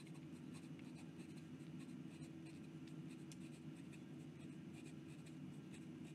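Steel nib of a Moonman M80 fountain pen scratching faintly across notebook paper in quick, continuous writing. The ink flow keeps up, with no skips.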